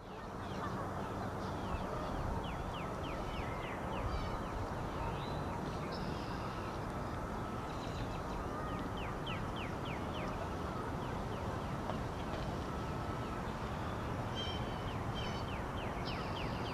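Birds calling outdoors: runs of short, quick high chirps come and go throughout, over a steady low background rumble.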